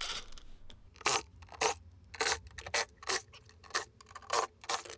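Cordless drill backing the woofer's mounting screws out of a plastic speaker cabinet: a string of short, sharp scraping clicks, about two a second.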